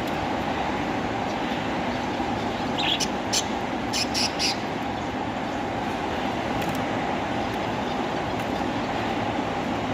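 A lovebird gives about five short, sharp chirps in quick succession a few seconds in, over a steady rumbling background noise.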